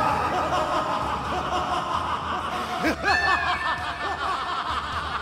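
A man laughing: a long string of rising-and-falling peals that overlap one another, with a fresh louder burst about three seconds in, over a low steady drone. It is a villain's gloating laugh over his captive.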